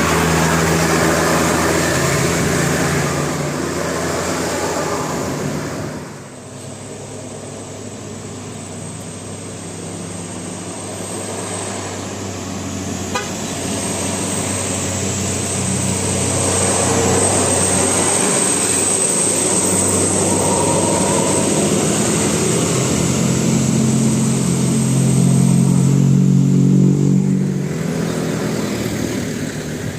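A basuri 'telolet' musical vehicle horn sounds a run of steady notes with street and engine noise beneath. The horn cuts off suddenly about six seconds in, the middle is mostly traffic noise, and horn notes come back in the last quarter.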